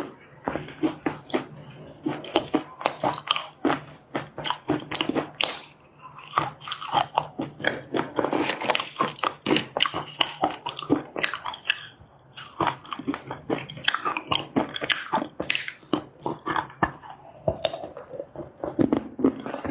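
A person biting and chewing dry chunks of loess clay: rapid runs of sharp, crackly crunches, with brief pauses between mouthfuls.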